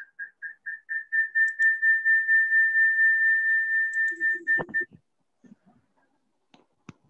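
A single high whistling tone that starts as quick pulses, about four a second, then holds steady for about three seconds and cuts off about five seconds in, with a thump just before it stops.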